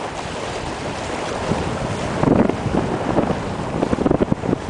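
Wind buffeting the microphone over the rush of water along a sailboat's hull as it moves through ocean swells, with heavier gusts about halfway through and near the end.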